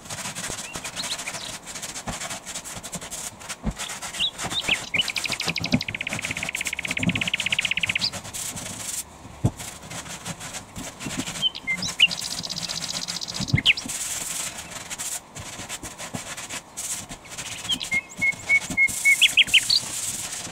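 Hand sanding of a wooden board: quick back-and-forth rasping strokes of abrasive on wood, with short high chirping squeaks now and then. The strokes come faster and louder, about three a second, near the end.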